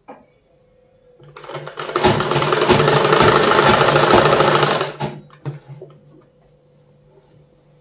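Sewing machine stitching a seam through cotton nighty fabric in one continuous run of about three and a half seconds. It starts a little over a second in and stops about five seconds in, followed by a couple of light clicks.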